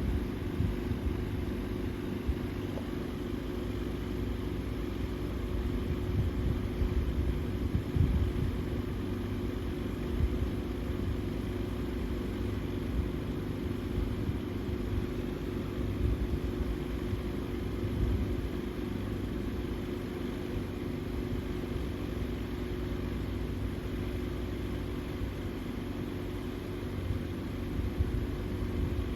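Vintage Freshnd Aire 14-inch table fan (model 1400) running steadily on medium speed: an even motor hum with its blades' airflow buffeting the microphone in an uneven low rumble. The motor is mounted without its rubber isolators, which makes the fan run loud.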